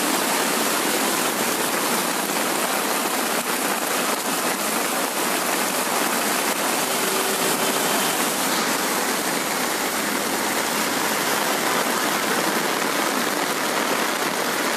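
Heavy monsoon rain pouring steadily onto a flooded street, a dense, even hiss.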